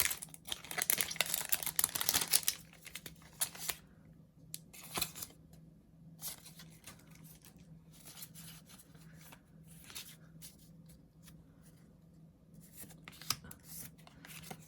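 A foil Pokémon booster pack being torn open and crinkled for the first two and a half seconds or so, then quieter rustling and soft flicks of the cards being handled.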